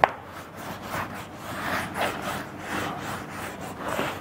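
Marker pen writing on a whiteboard: a sharp tap right at the start, then a run of short rubbing, squeaking strokes as equations are written.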